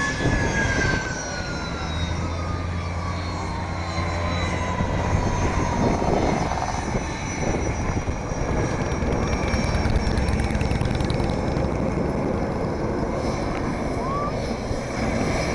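Jet airliner passing low overhead on its landing approach. Its engine whine falls steadily in pitch over the first few seconds as it goes by, with a low rumble that continues after it passes.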